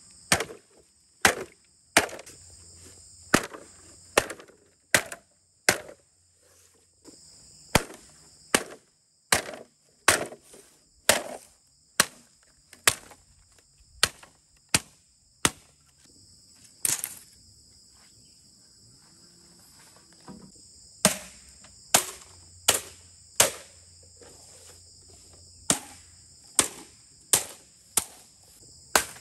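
Repeated sharp tool strikes on bamboo, about one every second, pausing for a few seconds after the middle and then resuming. Insects trill steadily behind.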